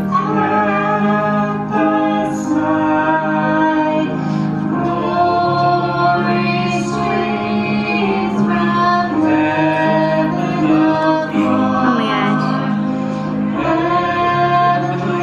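Karaoke singing of a Christmas song over a backing track, with voices carrying the melody over steady accompaniment.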